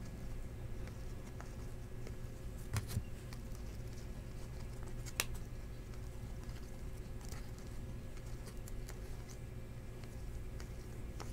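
Glossy trading cards being flipped through by hand: soft sliding and flicking of card stock, with two sharper clicks about three and five seconds in, over a steady low hum.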